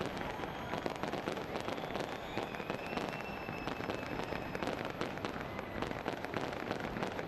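Fireworks display bursting and crackling in a rapid, continuous barrage of pops and bangs, with faint thin whistles now and then.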